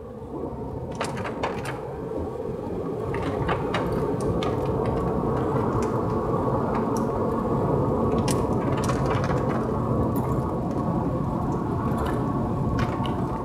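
Inside a moving car in the rain: steady road and tyre noise on a wet road, rising over the first few seconds, with scattered sharp ticks of raindrops hitting the car.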